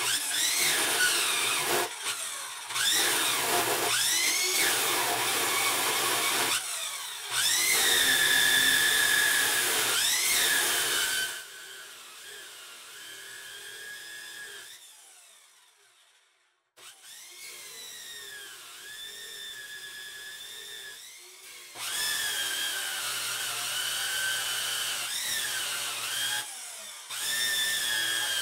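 Abrasive chop saw cutting steel plate in several passes. The motor's pitch dips each time the wheel bites into the steel and climbs back as it eases off. About twelve seconds in the saw winds down and fades out, then it starts again and cuts on.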